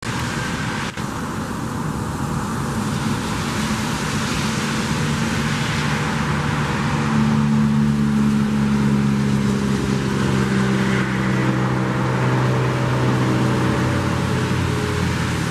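Steady road-traffic noise with a low hum that grows stronger about seven seconds in.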